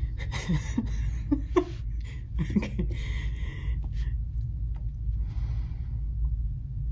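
A woman sighing and muttering under her breath, with breathy exhalations over the first few seconds, over a steady low hum.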